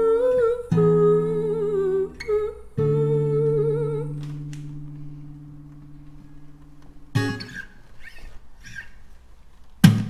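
Acoustic guitar chords strummed under a wordless hummed melody; about four seconds in the final chord rings on and fades away. Near the end come a few soft scattered sounds and one sharp strike.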